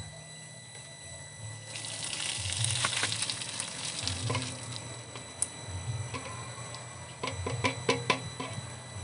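Hot water poured from a steel pot through a plastic basket strainer, splashing onto concrete, strongest for a couple of seconds from about two seconds in and then trickling. Near the end a few sharp clicks and clatters as the boiled golden apple snails in their shells tip into the basket.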